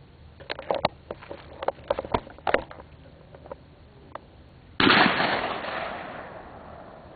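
A run of sharp clicks and knocks, then a single shotgun shot about five seconds in, its blast trailing off in a long echo over about two seconds.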